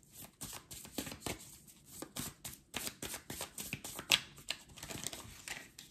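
A deck of oracle cards being shuffled by hand: a quick, irregular run of card flicks and slaps, with one louder snap about four seconds in.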